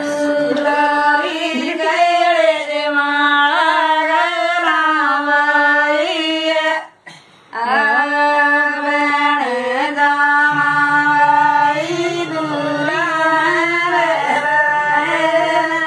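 A voice singing a slow, ornamented Indian devotional melody in Carnatic style, with long held notes and a short break about seven seconds in. From about ten seconds a lower steady tone sounds beneath the voice.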